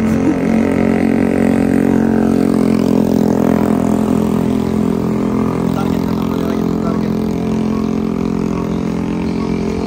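BMW 1000 cc sport bike's inline-four engine revved up and held at high revs through a loud exhaust, a steady, sustained note that eases off slightly near the end.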